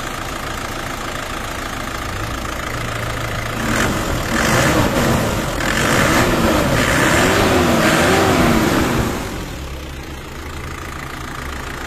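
Isuzu D-Max diesel engine idling steadily, then for about five seconds in the middle running louder, its pitch rising and falling several times, before settling back to idle. It is running again after a leaking fuel filter and line that let air into the fuel system were sealed.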